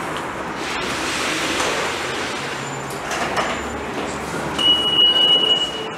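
Busy shopping-mall ambience: a steady noisy hubbub, with a high steady beep lasting a little over a second near the end.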